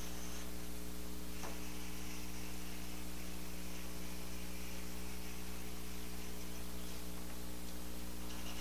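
Steady electrical mains hum with hiss, and faint scratching from a pen tracing letters over paper laid on sheet metal.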